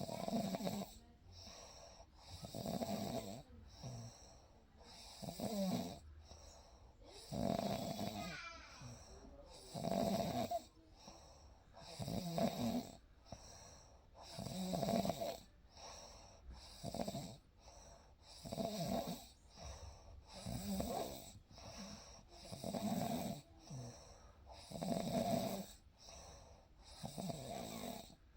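A person snoring in deep sleep, one snore about every two seconds in a regular rhythm.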